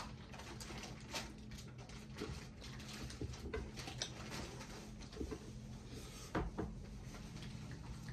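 Close eating sounds: chewing and lip smacks on fried chicken and fingers working rice on plates, heard as scattered small clicks and ticks, with a louder knock about six and a half seconds in. A steady low hum runs underneath.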